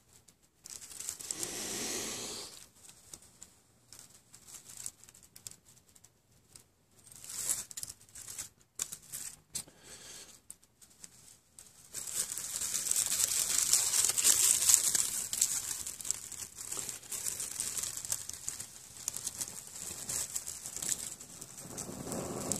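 Dry leaves crinkling and rustling as they are crushed and worked into a tinder bundle. It comes in short bursts in the first half and then runs louder and more continuous from about halfway.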